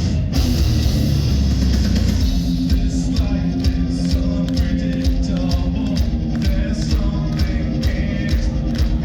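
Heavy metal band playing live: distorted electric guitars, bass and drums with singing, the drums keeping a steady beat and a long note held in the middle.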